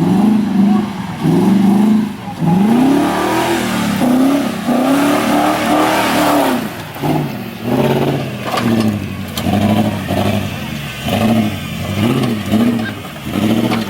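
Off-road 4x4's engine revving up and down over and over, each throttle blip rising and falling in pitch, coming quicker in the second half as the vehicle works its way over an obstacle.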